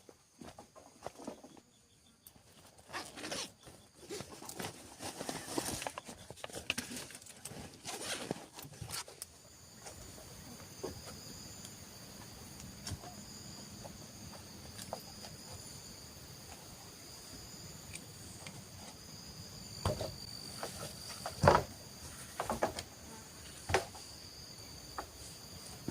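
Footsteps and rustling through forest undergrowth and leaf litter for the first several seconds, then a steady chorus of insects buzzing in several high tones. A few more rustles and knocks come near the end.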